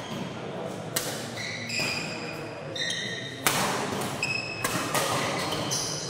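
Badminton rally: rackets striking the shuttlecock with sharp smacks, one about a second in and several more in the second half, and court shoes squeaking in short high chirps on the floor between the hits.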